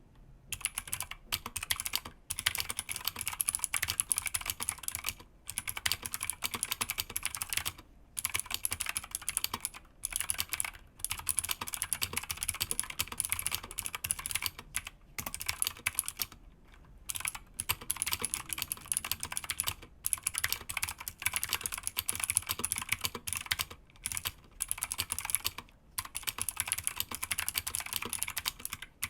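Fast continuous typing on a Keychron K2 mechanical keyboard with Gateron Blue clicky switches: a dense run of sharp, high clicks, broken by brief pauses every couple of seconds.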